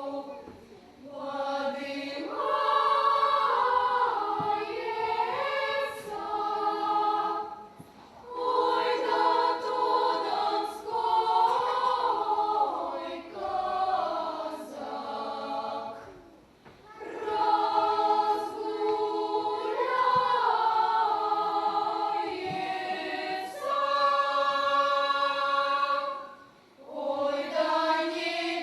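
Choir singing a Russian song in several vocal parts, in long sustained phrases with short breaks between them about four times.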